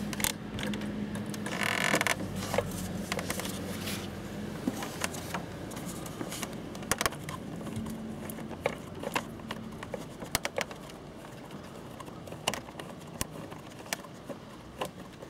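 Plastic and rubber handling noises of hands working a bulb socket loose from a motorcycle's front light housing: scattered sharp clicks and light scrapes, with a brief louder scraping rustle about two seconds in.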